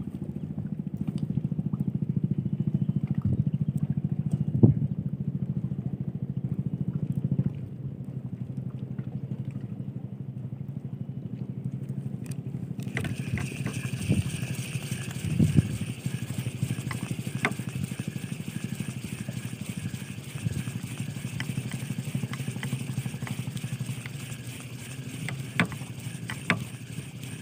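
A small engine runs steadily with a low hum, dropping somewhat in level about a third of the way in. About halfway through, a higher steady hiss joins it, with a few scattered light clicks.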